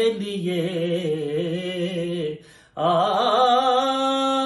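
A man singing a naat (Urdu devotional poem in praise of the Prophet) solo. He draws out the closing word 'liye' with wavering ornaments, breaks off briefly for breath about two and a half seconds in, then holds a long steady note to open the next line.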